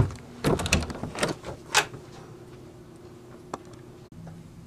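Sharp knocks and clatters of a wooden door being moved, most of them close together in the first two seconds, then a single faint click.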